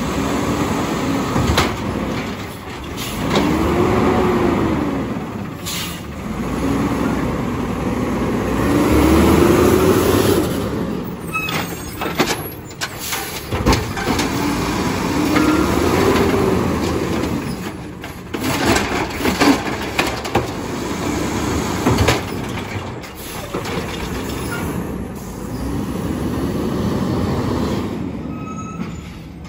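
Natural-gas automated side-loader garbage truck working its hydraulic arm: the engine and hydraulic pump whine rises and falls in pitch several times as carts are lifted and dumped. Sharp clanks of the carts and arm, and hisses from the air brakes, come and go over the running engine.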